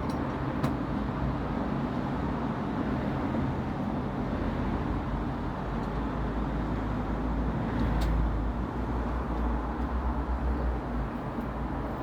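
Steady low background rumble and hiss, swelling about eight seconds in, with a couple of faint clicks.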